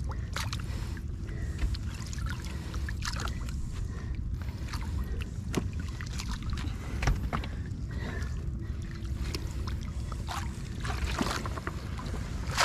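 Small fishing boat at sea: a steady low rumble with scattered sharp knocks and clicks and a faint steady hum.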